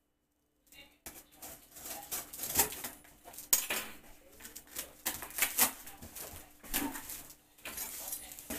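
A large kitchen knife slitting the packing tape on a cardboard box and scraping along the seams, with irregular sharp clicks and knocks of the blade against the cardboard, starting about a second in.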